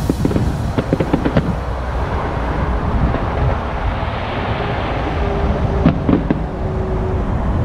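Distant fireworks shells bursting: a cluster of sharp bangs in the first second and a half and two more about six seconds in, over a steady low rumble.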